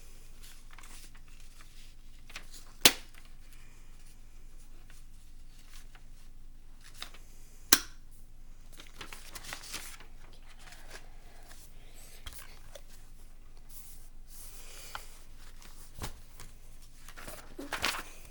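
Handling noise: paper rustling and shuffling, with two sharp clicks about five seconds apart and further bursts of rustling later on.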